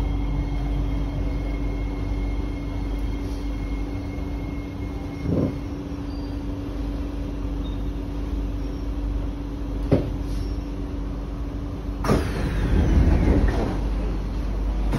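C151A MRT train car halting at a platform: a steady electrical hum with a higher whine that stops about five seconds in, and two short knocks. About twelve seconds in, the car's doors open with a sharp clunk, a falling swish and a second of sliding noise.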